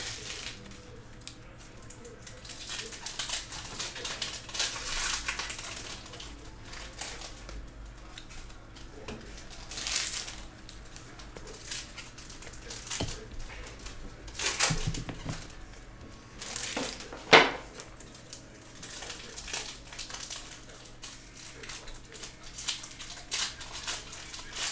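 Baseball trading cards handled in a stack: cards sliding and flicking against one another as they are sorted, giving scattered swishes and light clicks, with one sharper click about seventeen seconds in.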